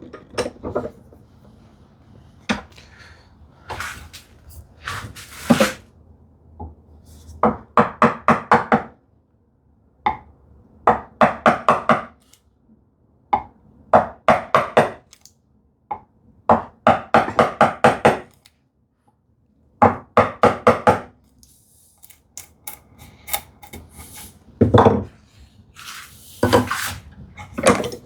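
A hand tool working wood in short bursts of rapid strokes, several a second, about a dozen bursts with pauses between, while a joint is marked out.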